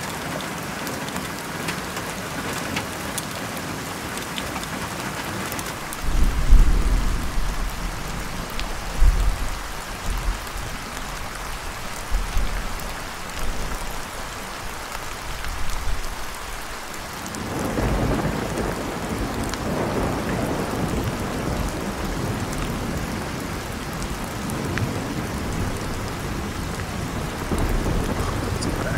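Steady rain falling in a thunderstorm, with thunder rumbling several times between about six and seventeen seconds in. After that the rain becomes louder.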